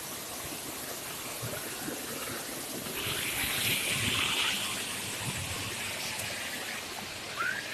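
Waterfall water rushing and splashing as a steady hiss that swells louder for a second or two about three seconds in.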